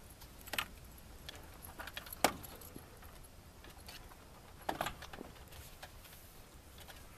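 Light metallic clinks and small rattles as the tail fittings and control cables of a Kolb Firefly ultralight are handled by hand. There are three sharper clinks, the loudest in the middle, with small ticks between them.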